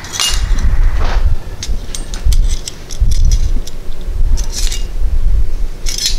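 A ring of metal measuring spoons jingling and clinking as it is handled, with several short clinks scattered through, over dull low bumps and rumble.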